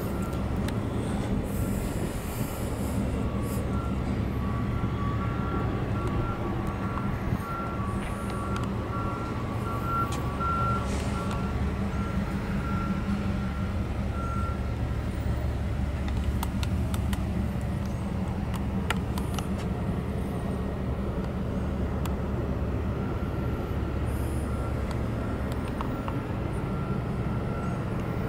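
A vehicle engine running steadily at idle, a low even hum. A high electronic beeping comes and goes through the first half.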